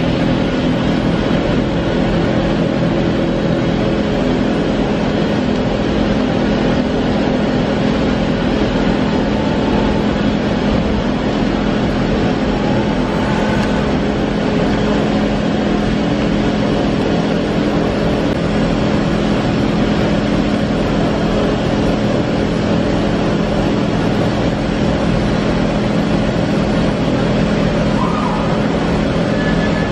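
Doosan DBC130II CNC horizontal boring mill running under power, a loud steady mechanical hum with several constant tones, while its spindle quill moves in the head.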